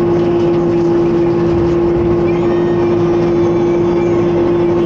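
McCormick X4-60 tractor running at steady revs, driving a Zanon boom-arm flail mower, with one strong steady humming tone over the engine noise.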